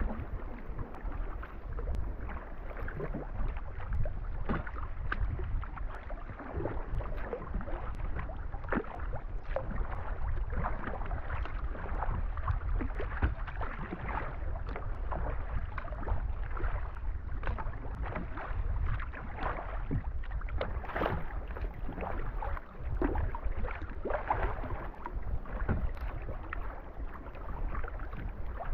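Sea kayak being paddled through choppy water: the paddle blades splash in stroke after stroke while small waves slap and gurgle against the hull, over a steady low rumble of wind on the microphone.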